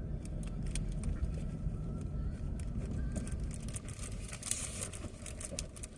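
Car being driven, heard from inside the cabin: a steady low road-and-engine rumble with faint, irregular small clicks and rustles over it.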